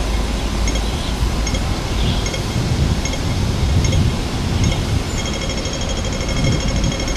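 Pedestrian crossing signal's audible beeper: slow, evenly spaced high-pitched beeps while the red man shows, switching about five seconds in to rapid beeping as the green man lights, the signal that it is safe to cross. Road traffic noise underneath.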